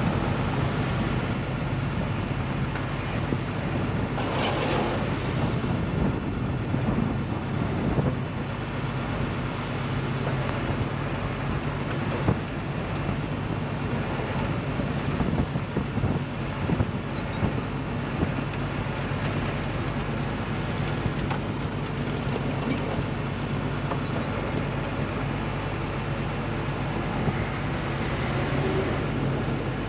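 Flatbed tow truck's engine running steadily with a constant low hum, powering the winch as the overturned car is pulled over onto its side. A few short knocks sound in the middle.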